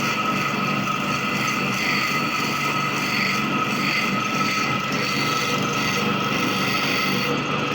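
Clipper-blade sharpening machine running steadily, with a constant motor hum and the continuous rubbing, grinding sound of a clipper blade being ground and polished on it.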